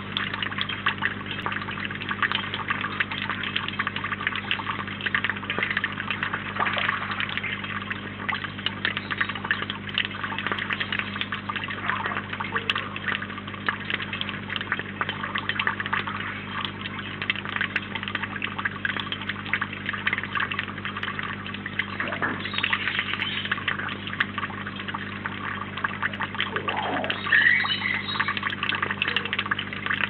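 Steady trickling of running water with fine crackle, over a low steady hum.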